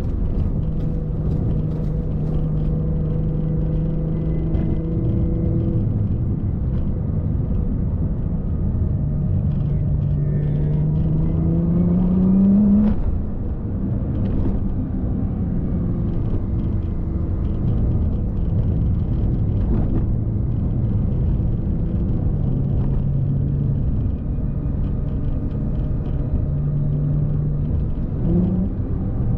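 Car engine and road rumble while driving. The engine note holds steady, climbs for a few seconds about a third of the way in, then drops away, and rises briefly again near the end.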